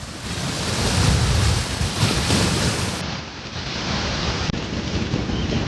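Wind gusting over the microphone, a steady noisy rush with buffeting low rumble; about three seconds in it turns duller.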